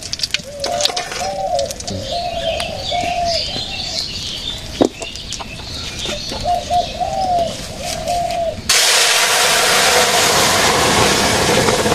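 A pigeon cooing in repeated phrases through the first few seconds and again around six to eight seconds in, with a single sharp knock about five seconds in. About nine seconds in, a loud, steady rushing noise starts abruptly and drowns out the cooing.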